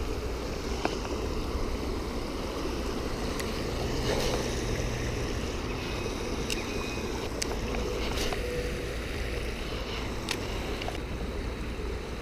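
Steady, even rushing outdoor noise, strongest low down, with a few faint clicks scattered through it.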